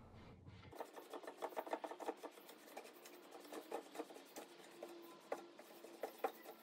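A cloth rag in a gloved hand buffing excess tung oil off a wood surface. Faint, irregular rubbing and scratching strokes start about a second in.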